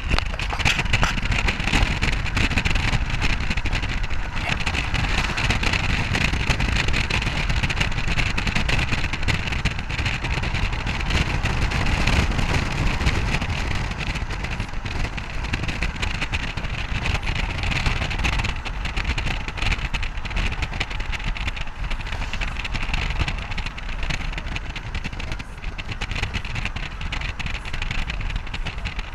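Steady road noise of a moving vehicle: a continuous low rumble with hiss, running evenly throughout.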